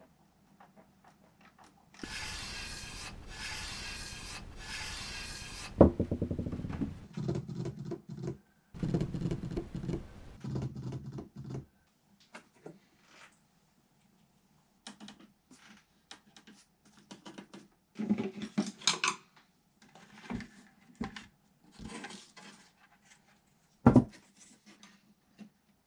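No-input feedback noise from a DigiTech RP-1 guitar multi-effects processor: a few seconds of dense hiss, then choppy, stuttering low tones, then scattered glitchy clicks and crackles.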